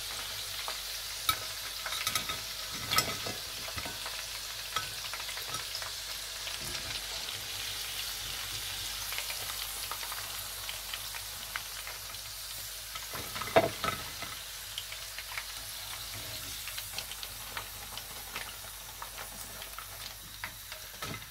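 Chicken pakoras deep-frying in hot oil: a steady sizzle, with short clicks and scrapes of a wire spider skimmer lifting the finished pieces out of the kadai. One louder knock comes about two-thirds of the way in, and the sizzle eases a little toward the end.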